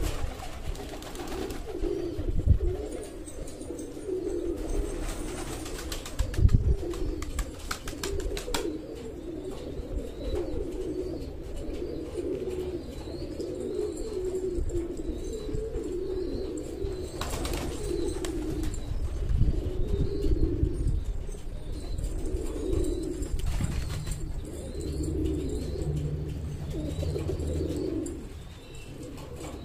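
Several domestic pigeons cooing continuously, their low warbling calls overlapping one after another. Two low thumps come about two and six seconds in.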